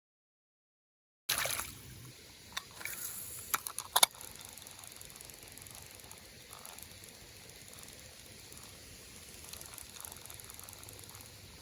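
Fishing reel being cranked as a fish is brought in: after about a second of dead silence there are a few sharp clicks and ticks, then faint, steady mechanical ticking over water noise.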